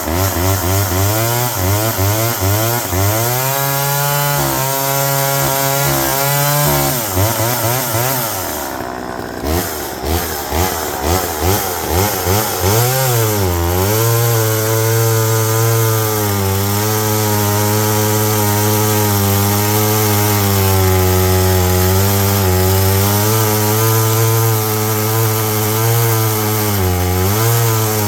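Homelite EZ two-stroke chainsaw running after its revival. It is revved up and down at first, falters with uneven firing for a few seconds, then picks up and holds at steady high revs for the rest, with one short dip near the end.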